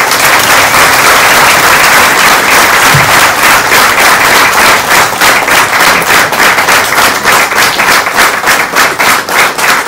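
Audience applauding loudly, the clapping falling into a more even beat toward the end.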